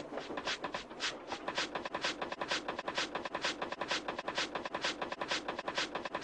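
Steam locomotive puffing fast, an even run of short hissing chuffs about five a second.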